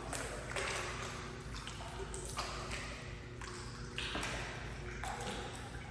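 Indoor swimming pool ambience: a run of splashes and water noise, one every half second to a second, over a steady low hum from the pool hall.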